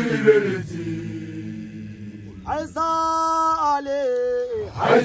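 Men's voices chanting a call-and-response Basotho initiation song, unaccompanied. The group's chorus trails off into a low held note, a single voice leads with long steady held notes from about halfway, and the group comes back in at the very end.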